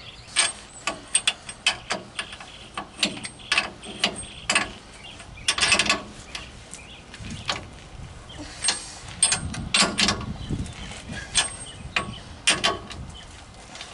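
Hand ratchet wrench clicking in short, irregular runs as nuts are tightened on the rear suspension of a 1998 Chevy C1500 pickup.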